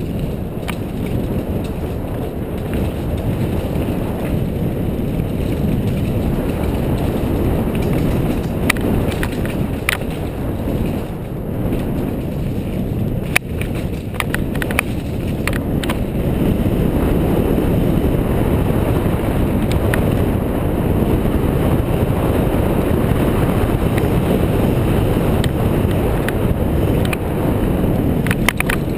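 Wind rushing over the camera microphone of a mountain bike descending a dirt downhill trail, mixed with the rattle of the tyres and frame over the ground. Scattered sharp clicks and knocks come in the middle stretch, and the rushing gets louder a little past halfway.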